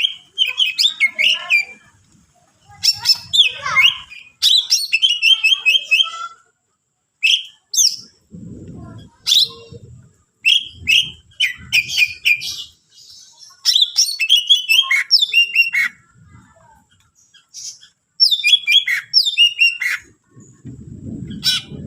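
Green leafbird (cucak ijo) singing in phrases of rapid, high chirps and whistled sweeps with short pauses between, its song full of mimicked calls of other birds.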